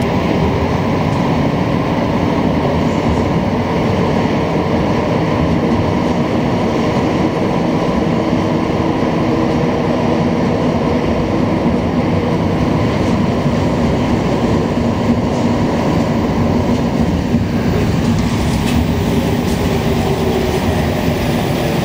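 Rubber-tyred Montreal metro train, an Azur set, running through the tunnel as heard from inside the car: a loud, steady rumble with a steady motor hum. Near the end the sound changes as the train pulls into a station.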